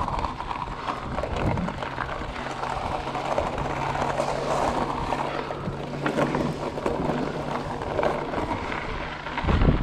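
Trek Fuel EX 5 mountain bike rolling over a gravel and pebble path: tyres crunching on loose stones, with small rattles and clicks from the bike. A low steady hum runs underneath for most of it, and a loud low rumble rises near the end.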